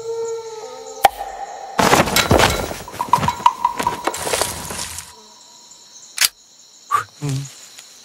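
Advert soundtrack in a jungle scene: a single sharp crack, then about three seconds of dense, rapid cracking like a burst of gunfire, then a few separate sharp knocks. A steady high chirr of insects runs underneath.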